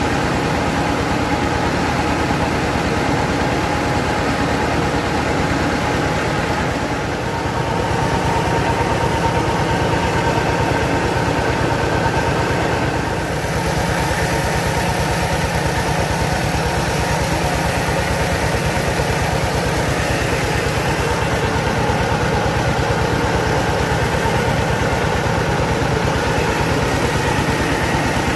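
Engine-driven mobile rice mill running steadily: the engine and the turning huller and polisher drone evenly while milled grain runs through the machine.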